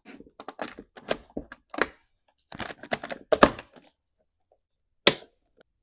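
Quick clicks and knocks of chainsaw parts and hand tools being handled during reassembly. They come in a run for the first two seconds and again in a short cluster about halfway, then there is one sharp knock near the end.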